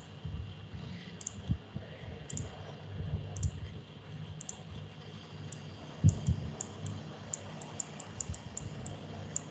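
Light clicking at a computer, about one click a second at first and quicker near the end, with soft low knocks and one louder knock about six seconds in.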